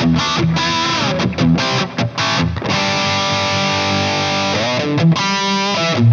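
Distorted electric guitar played through a Fractal Audio FM3 amp modeller on its JP2c Yellow-channel crunch preset. Short choppy chords come first, then a chord held for about two seconds. A quick slide leads into a brighter chord near the end.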